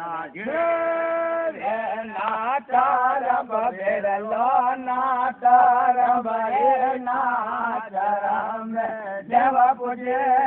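Male voice singing a devotional chant, holding a long steady note near the start and then wavering melodic phrases with short breaks for breath.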